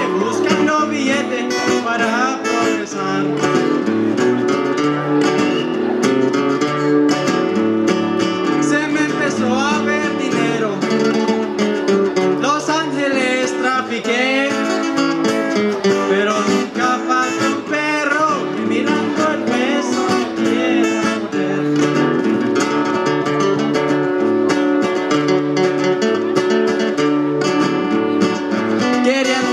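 Two acoustic guitars playing a song live, with strummed chords and a melody line over them.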